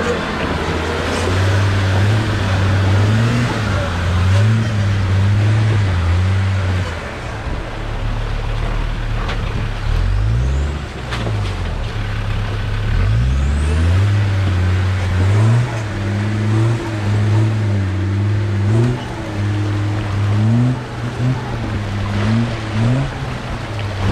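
A modified off-road 4x4's engine revving up and down in low gear as it crawls over boulders in a rocky stream bed, the pitch rising and falling again and again, with the hiss of the stream's rushing water behind.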